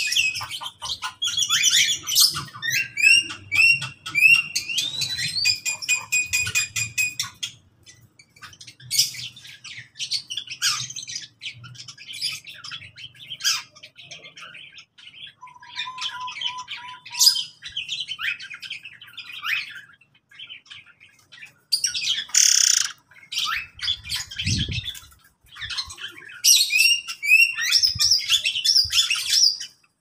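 A mixed aviary of small cage birds chirping and calling over one another, with many rapid high notes and repeated phrases. A loud, harsh squawk stands out about three quarters of the way through.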